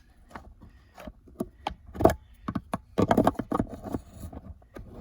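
Sharp clicks and knocks of a tool and metal parts as he tries to work a clip off a manual car's shifter assembly, with a denser clatter about three seconds in.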